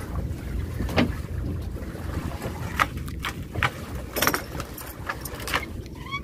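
Irregular short splashes and knocks, about six of them, as a gill net is worked over the side of a small boat. They sit over a steady low rumble.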